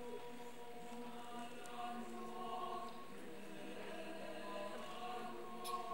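Mixed choir of women's and men's voices singing soft, sustained chords, the parts holding notes and moving slowly from chord to chord.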